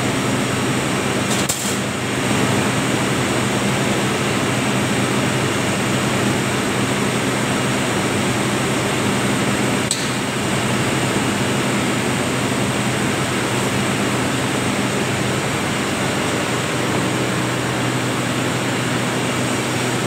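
Spinning-mill machinery running: a steady loud hum and whir from the LH10 lap former and the machines around it, with two short clicks, one about a second and a half in and one about ten seconds in.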